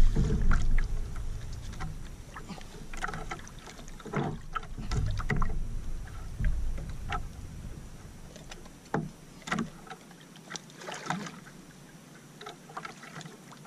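Water splashing and slapping against an outrigger canoe's hull around a hooked amberjack held at the side, with scattered knocks and clicks. A low wind rumble on the microphone eases off about ten seconds in.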